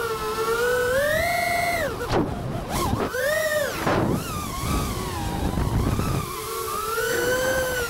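FPV quadcopter's brushless motors whining, heard from the camera on board. The pitch rises and falls with the throttle and drops sharply about two seconds in and again near four seconds. Wind rush runs underneath.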